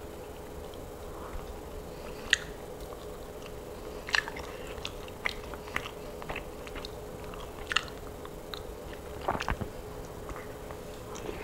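A person eating baked chicken off the bone close to a clip-on microphone: chewing and biting, with about half a dozen sharp, short clicks scattered through, over a faint steady hum.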